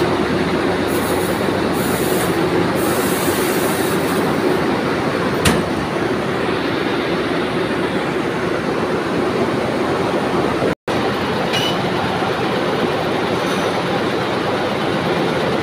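Cotton comber machines and the surrounding spinning-mill machinery running steadily: a loud, dense mechanical din with a constant hum. A single sharp click about five and a half seconds in.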